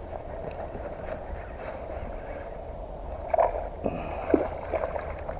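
A hooked bass splashing at the water's surface a few times, starting about three seconds in.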